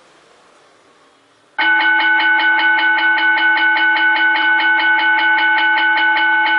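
Ahuja SBELL-8012 bell amplifier playing its electronic running-bell tone: a rapid, continuous ringing pulsed about five times a second that starts suddenly about a second and a half in. Before that, only the faint fading tail of the previous gong sound.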